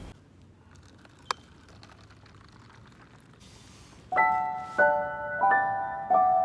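Quiet for about four seconds, broken by a single sharp click about a second in; then background piano music starts, slow single notes each struck and fading.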